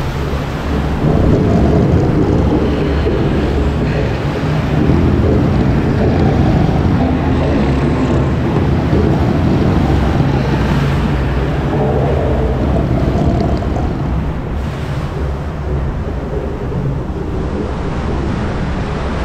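Rushing, splashing water around a river-rapids raft as it passes waterfalls, with wind buffeting the microphone. Louder from about a second in, easing off a few seconds before the end.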